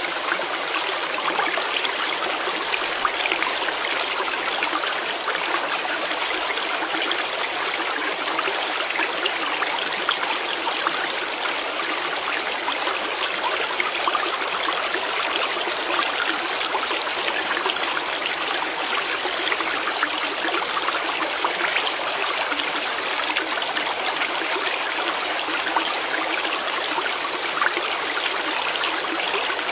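Steady splashing and trickling of water: small waves of a mountain lake lapping on a pebble shore close by.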